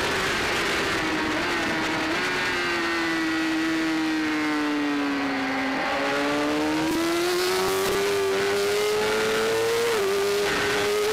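Onboard sound of a BMW S1000RR superbike's inline-four engine at race pace, with wind rushing past. The engine note falls as the bike slows into a corner, with small upward jumps at downshifts. It then climbs steadily as the bike accelerates out, and drops sharply at an upshift near the end.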